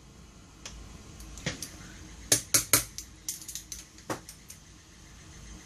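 Metal clicks and taps of an Allen wrench being worked into and against a small carburetor screw. The clicks are scattered, with a quick run of three sharp ones about two and a half seconds in and lighter taps after.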